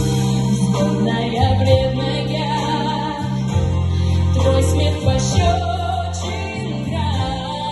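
A song: a singing voice carries a wavering melody over instrumental backing with sustained bass notes.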